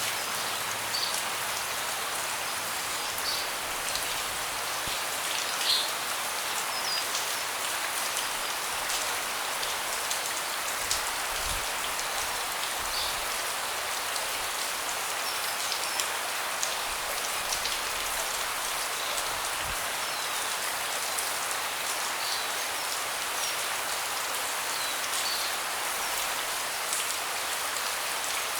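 Steady rain falling on a deck, an even hiss dotted with the ticks of single drops hitting the boards.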